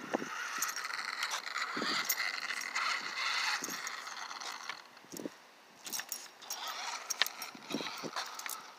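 Small electric RC monster truck (Redcat Volcano 18) whirring as it drives over rough concrete, with scattered clicks and light knocks. The whirring drops away about halfway through.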